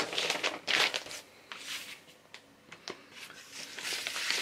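A paper LP inner sleeve and cardboard record jackets rustling and sliding as they are handled, in several short swishes.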